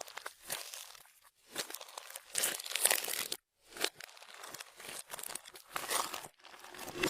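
Clear slime being squished and kneaded by hand, in irregular bursts of wet crackling and clicking with short pauses between them.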